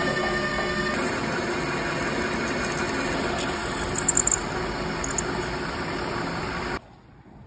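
Metal lathe spinning a metal part while a drill held in the tailstock chuck cuts into it. A short spot-drilling pass with a steady whine gives way to a twist drill boring in, with a rougher cutting noise and a few sharp squeaks past the middle. The sound cuts off suddenly near the end.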